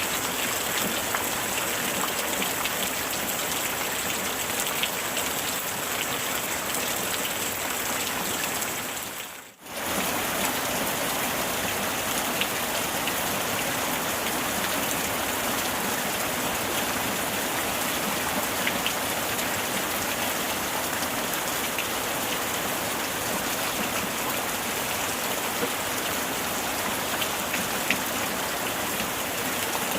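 Steady heavy rainfall, a dense even patter with scattered individual drop ticks. About a third of the way through it fades out almost completely and comes straight back in.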